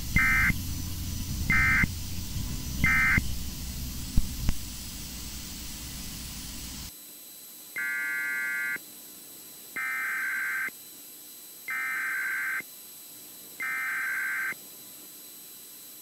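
EAS/SAME digital data bursts, a harsh warbling tone. Three short bursts in the first three seconds are the end-of-message code closing a tornado warning, over radio-stream hiss. After a sudden drop in background noise, four longer bursts about two seconds apart are the header starting the next alert.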